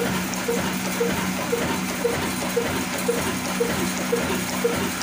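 Diamond single-cylinder horizontal 'kala' diesel engine with a heavy flywheel, rated 22 HP at 275 RPM, running slowly and evenly at about two beats a second, with a steady hum underneath.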